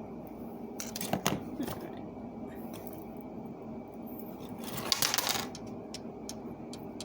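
Light clicks and clinks of craft wire being handled and twisted together, with a cluster of clicks about a second in and a louder rustling scrape about five seconds in, over a steady low hum.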